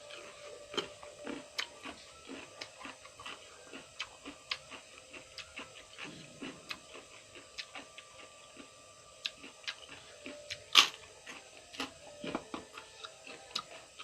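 Close-up chewing of raw cucumber: a steady run of wet, crunchy clicks, about two or three a second, with one louder click about eleven seconds in.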